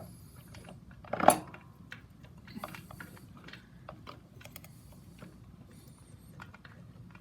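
Scattered small clicks and clinks of metal parts and tools being handled, with one louder clack about a second in.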